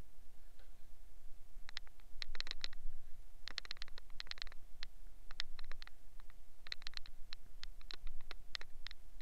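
Irregular bursts of short clicks and scratches from scrubbing a foam-covered steel wheel and its tyre by hand, beginning about two seconds in, over a faint steady hum.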